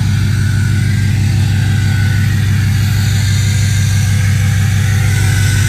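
2005 Ford F-250's 6.0 Powerstroke V8 turbodiesel idling through a 5-inch turbo-back exhaust: a steady, loud, low pulsing rumble with the turbocharger's faint whistle ('hair dryer') above it.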